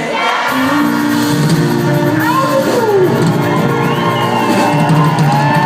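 A live band playing on stage, with whoops and shouts from the crowd.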